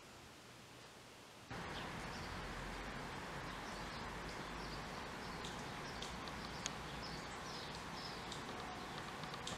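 Outdoor morning ambience starting abruptly about one and a half seconds in: a steady background hiss with small birds chirping repeatedly over it.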